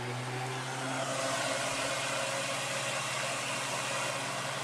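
Holmes Blizzard 9-inch table fan (model HAOF90) running on medium speed without oscillation: a steady rush of air over a low motor hum, growing a little louder about a second in.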